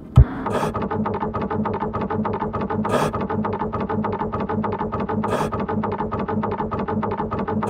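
Flatbed scanner's carriage motor running as the scan head travels: a rapid, even buzzing pulse over a steady whine.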